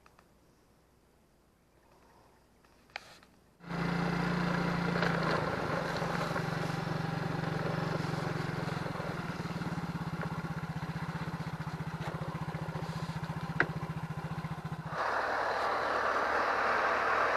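Near silence with a faint click, then from about four seconds in a small motor scooter's engine runs steadily as it rides along a dirt track. Near the end the scooter's steady engine note stops and a louder, broader engine noise takes over.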